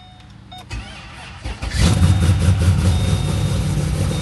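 Cammed Pontiac G8 cold start: a short chime sounds, the starter cranks for about a second, and the engine catches with a sharp rise in level just under two seconds in, then settles into a steady, choppy cammed idle.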